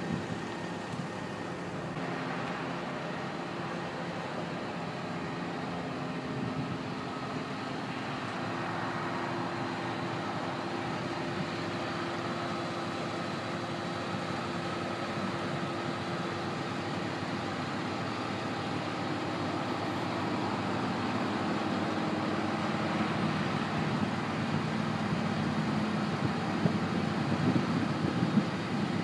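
Steady road-traffic noise of passing cars and trucks with a low engine hum, growing louder over the last several seconds, with a few short knocks near the end.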